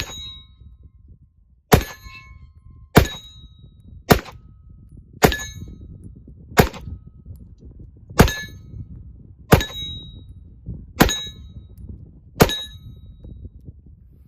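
Ten single shots from a 9mm Glock 19 Gen 5 pistol fired at a slow, even pace, about one every second and a half. Each shot is followed by a short metallic ring.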